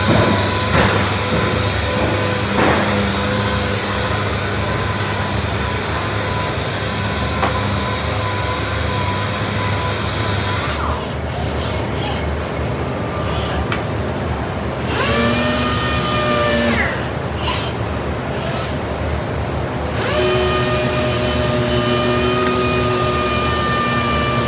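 COSMO robotic sanding cell at work: the robot arm's sanding head runs on a cabinet door with its vacuum dust extraction, a steady mechanical whine and hiss. About halfway through the hiss drops out twice for a few seconds and the machine's pitch glides as it changes speed, then the full sound returns.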